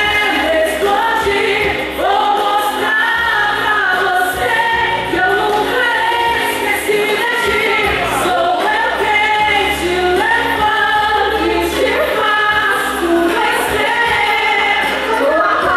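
A woman singing a gospel song into a handheld microphone, her voice amplified, over instrumental backing with a steady bass line.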